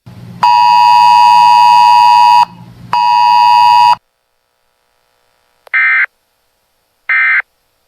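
Weather radio alert signalling after a National Weather Service broadcast: two long, loud buzzing electronic tones, the first about two seconds and the second about one, then three short chirping EAS/SAME data bursts, evenly spaced about a second and a quarter apart, the end-of-message code.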